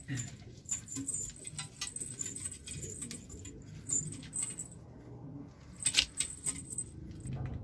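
Pigeons moving about on wooden boards in a wire-mesh loft: scattered sharp clicks and taps, with two louder clicks about four and six seconds in, and short, thin, high chirps repeating throughout.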